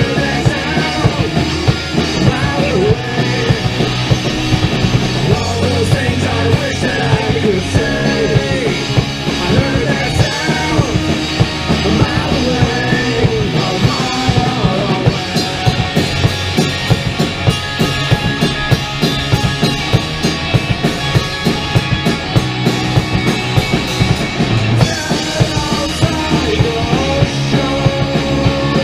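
Live rock band playing: electric guitar, bass guitar and drum kit, with a steady, regular drum beat.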